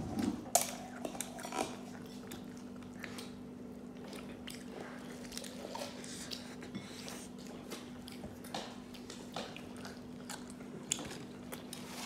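Close-up biting and chewing of KFC fried chicken: irregular crisp clicks from the breading mixed with wet chewing, over a faint steady hum.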